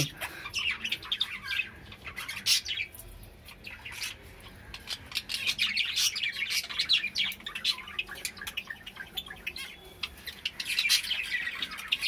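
Caged budgerigars chattering: a dense, continuous twittering of short chirps and squawks.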